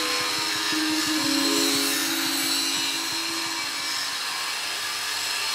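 A grinder grinding steel and throwing sparks: a steady, dense high hiss. Held notes of background music sound underneath and fade out about halfway through.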